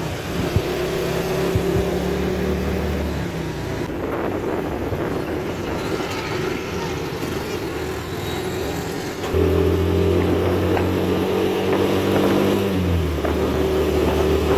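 Motor rickshaw's small engine running steadily in city traffic, with road noise. Its pitch slides down once near the end as it slows.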